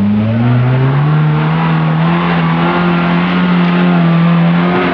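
Off-road vehicle's engine revving hard under load, its pitch climbing over the first second and then held high and steady.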